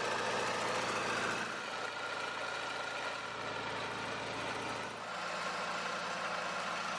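Small engine of an off-road-modified lawn tractor running steadily at idle.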